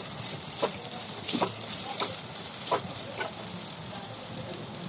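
Sliced onions sizzling in hot oil in a metal pot as they brown, with a ladle scraping and knocking against the pot about five times as they are stirred.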